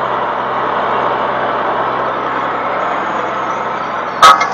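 Vehicle engine running steadily, heard as an even rumble-free hiss of machine noise, with a brief sharp sound about four seconds in.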